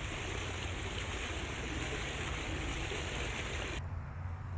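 Pool water gushing out over the pushed-down rim of an inflatable above-ground pool in a steady rush, cut off sharply near the end.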